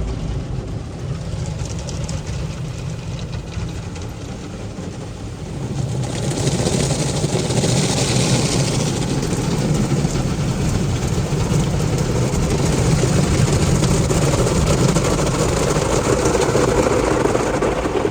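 Inside the cabin of an idling car in a Ryko Softgloss MAXX 5 automatic car wash: a low engine rumble, then about six seconds in a loud, steady rush as the wash's water and soft-touch cloth scrubbing start working over the car.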